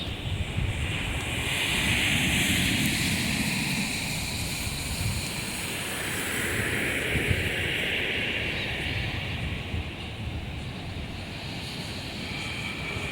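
Sea waves breaking and washing up the shore, two swells of surf about five seconds apart, with wind buffeting the microphone.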